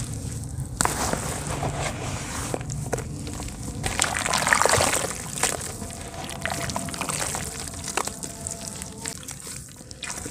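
Hands squeezing and crumbling soft wet dirt into mud: squelching and crumbling with many small crackles, loudest about four to five seconds in.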